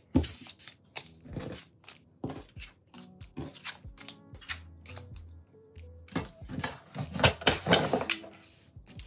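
Photocards being gathered up by hand and tapped into a stack, a string of short clicks and slaps, with quiet music underneath.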